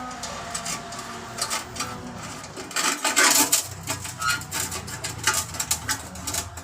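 Irregular clicks, knocks and clatter of objects being handled, busiest and loudest about three seconds in, over a faint steady low hum.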